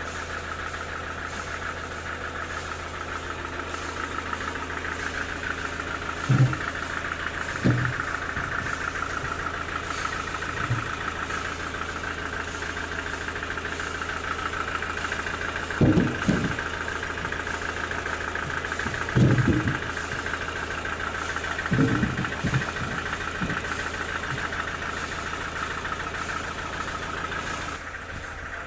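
Sawmill machinery running steadily with a high whine over a low hum, broken by several loud knocks. The sound eases off near the end.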